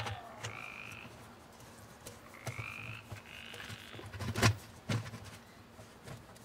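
Hard plastic clicks and knocks as the PVC union on a submersible pond pump's plumbing is fitted and tightened by hand inside the skimmer; one knock about four and a half seconds in is louder than the rest. Short high chirps, rising slightly, sound a few times between the knocks.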